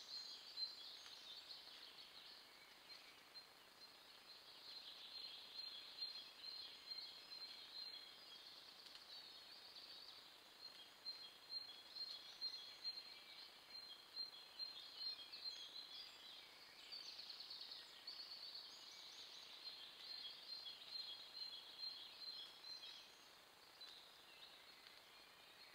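Faint songbirds singing in woodland, several small calls and trills overlapping throughout, over a steady low hiss from a trail camera's microphone.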